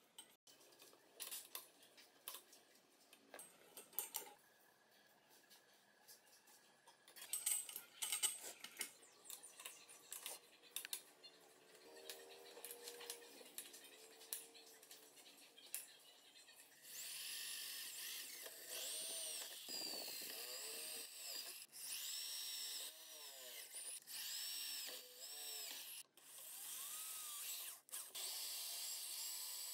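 Scattered knocks and clatter of handling, then, from a little past halfway, an electric drill with a step bit boring into a rubber tire, running in spurts with short stops between them.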